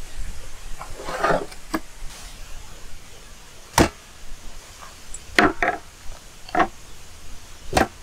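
Knife chopping through raw chicken onto a wooden cutting board: about five sharp knocks at uneven intervals in the second half, with softer handling noises before them.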